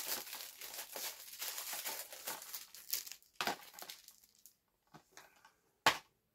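Plastic shrink-wrap being crinkled and torn off a Blu-ray case, busiest in the first three seconds. Then a few handling clicks and one sharp snap about six seconds in as the plastic case is opened.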